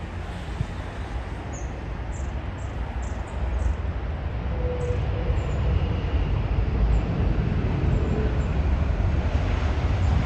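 Jet engines of a Boeing 777 airliner on landing: a steady, deep rumble that grows louder as the aircraft comes close, with a step up about three seconds in.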